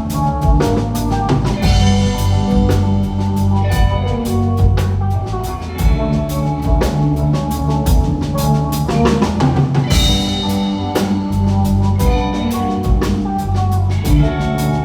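Band music with no singing: a drum kit keeps a steady beat under sustained pitched notes, with a cymbal crash about ten seconds in.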